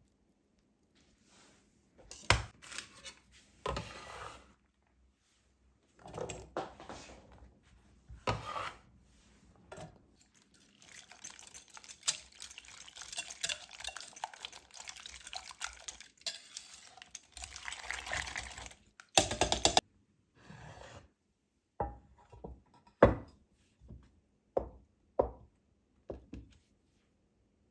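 Wire whisk beating eggs in a ceramic bowl: a fast, steady clinking and sloshing for about eight seconds in the middle. Before it come separate clatters and scrapes, and after it a loud clank, then several single knocks of kitchenware set down on the wooden board.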